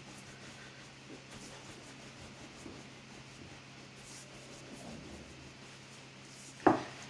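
Hands gliding outward over a sheet of fresh egg pasta wound on a long wooden rolling pin: faint, soft rubbing and swishing of palms on dough and wood, with one sharp wooden knock near the end.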